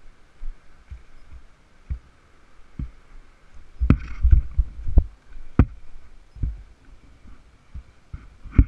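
Irregular low thumps and knocks from the ATV-mounted camera being jostled, loudest in a cluster about four to six seconds in and once sharply near the end, with a faint steady high drone behind and no nearby engine heard.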